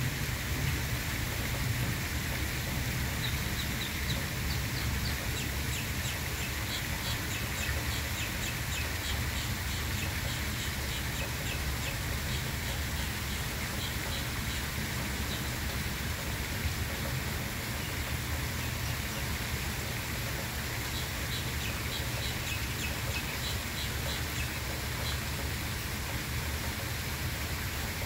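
Ducklings peeping: quick runs of short, high chirps in two spells, the first starting a few seconds in and the second a little past the middle, over a steady low background rumble.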